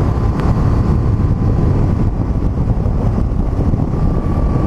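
Motorcycle engine running steadily at road speed, with heavy wind rush on the bike-mounted microphone.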